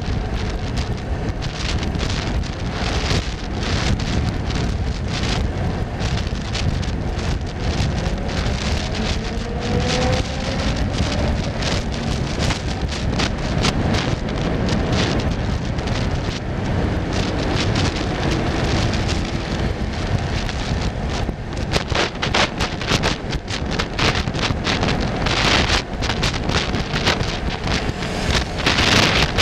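Wind buffeting the microphone: a steady rumble with crackles throughout, and a faint rising whine about nine seconds in.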